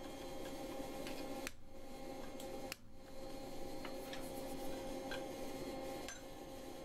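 A few faint, light metallic clicks and taps of blacksmith's hand tools (punch, chisel and hammer) being handled at a vise holding a hot-forged skull, over a steady background hum; there are no heavy hammer blows.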